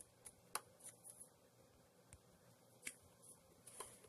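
Faint, scattered clicks and scrapes of a precision screwdriver working at the small cover screws of a 2.5-inch laptop hard drive, the sharpest click about half a second in.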